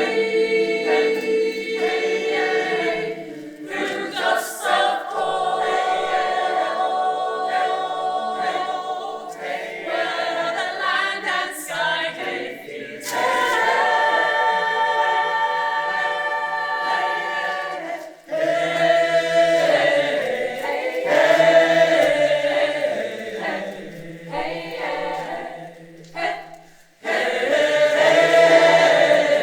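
Choir singing unaccompanied in several voices, holding long chords, with two short breaks, one about two-thirds of the way in and one near the end.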